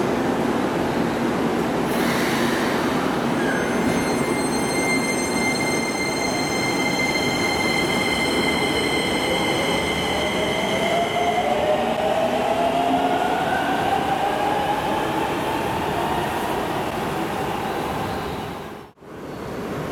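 A Hokuso 7500-series commuter train pulls out of an underground station, its VVVF inverter and traction motors whining. First comes a set of steady high tones, then a whine that rises in pitch as the train gathers speed, echoing off the station walls. The sound drops out briefly near the end.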